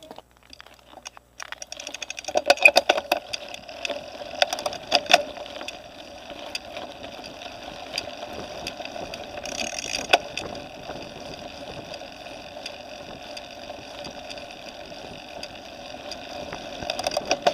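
Mountain bike rolling along a gravel dirt track, heard through a camera fixed to the bike: a steady running noise with bursts of rattling and knocking from the bike over the rough ground, heaviest a few seconds in and again around the middle and near the end.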